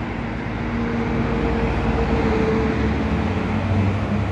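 A motor vehicle engine running steadily, a low rumble with a steady hum that swells near the end.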